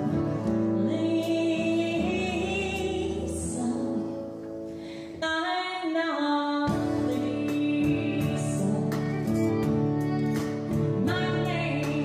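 Live country band playing, with a woman singing the lead over acoustic-electric guitar and drums. A little before the middle the bass and drums drop away, leaving the voice and guitar, and the full band comes back in a little past the middle.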